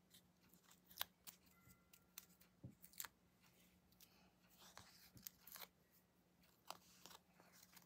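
Faint, scattered little clicks and paper rustles of the backing papers being peeled off foam adhesive dimensionals on a cardstock panel.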